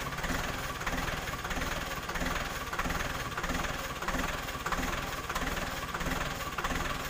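Farm tractor engine idling steadily, with a fine even pulse to its running.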